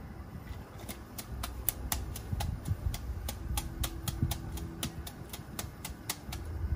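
Metal wire-mesh noodle basket clicking and rattling against the rim of a pot of boiling water as noodles are dunked, lifted and shaken. The clicks are sharp and irregular, several a second, over a low rumble.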